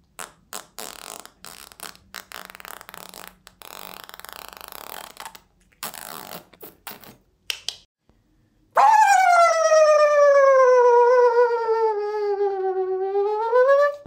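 Silly mouth noises: about five seconds of breathy, spluttering blown bursts, then after a short pause a long, loud, high-pitched vocal squeal that slides slowly down in pitch and rises again near the end.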